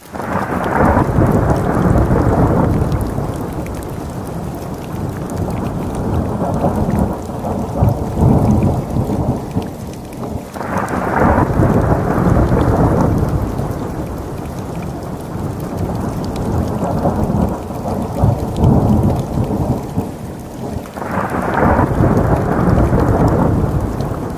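Thunderstorm: heavy rain with rolling thunder, the rumble swelling three times, about ten seconds apart.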